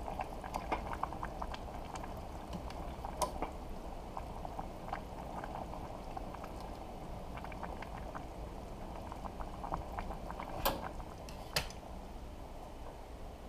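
Noodle soup boiling in a stainless steel pot, a steady bubbling and popping. A few sharp clicks stand out, one about three seconds in and two close together near the end.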